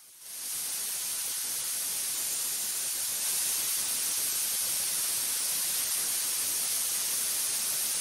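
Steady static-like hiss, strongest in the highs, coming up within the first half second, with a few faint ticks.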